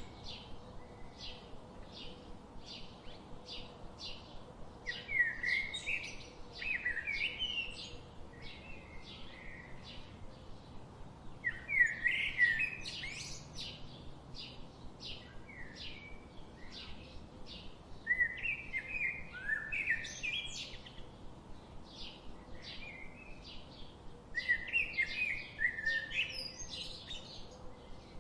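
Birds chirping: a steady run of short, high chips about two a second, broken four times by a louder, warbling song phrase lasting about two seconds.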